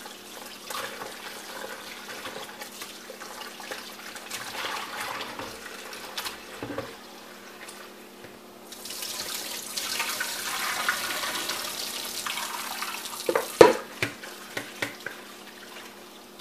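Kitchen faucet running into a plastic bowl as shrimp are rinsed by hand, the water splashing and sloshing; the flow gets louder about nine seconds in. A few sharp knocks come near the end.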